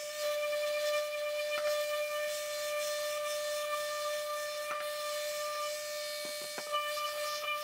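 Festool ETS EC 150 random orbital sander running with a steady high whine while sanding a laminated wood panel. A few knocks, clustered a little over six seconds in, come from the wooden piece being handled on the bench.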